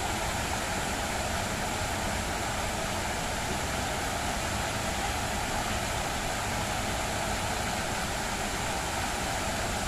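Steady rushing and splashing of a large fountain's many water jets falling back into its pool.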